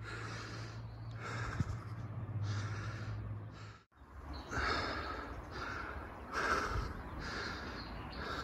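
Close rustling sounds from someone walking through woodland undergrowth, coming about twice a second, with a steady low hum under the first half. The sound drops out briefly about four seconds in.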